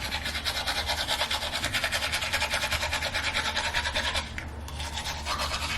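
A toothbrush scrubbing teeth in rapid back-and-forth strokes, stopping about four seconds in.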